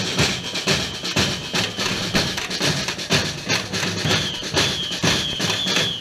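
Marching drum band playing a fast, steady beat on bass drums and other drums. A high note is held and repeated above the drumming over the second half.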